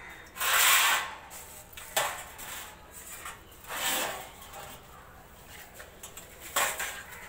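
Large metal trays being handled and moved on a table: four short scraping, rattling sounds, the first and loudest about half a second in, with a sharp knock at about two seconds.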